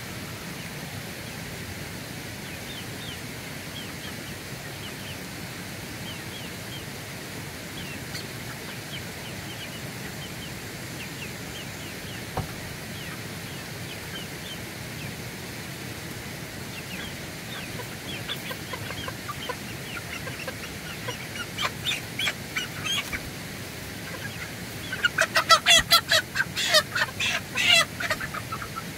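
Young cheonggye (green-egg) chickens calling: faint high peeping over a steady outdoor hiss, growing louder after the middle, then a quick run of loud squawks near the end as a bird is handled and dropped into the coop.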